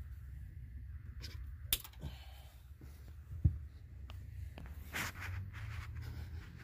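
Light handling noise: scattered soft clicks and rustles, with one sharper knock about three and a half seconds in, over a low steady hum.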